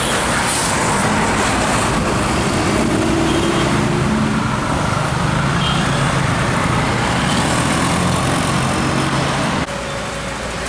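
A road vehicle's engine running loud and close, with tyre and road noise, as it goes by; the sound drops off abruptly near the end.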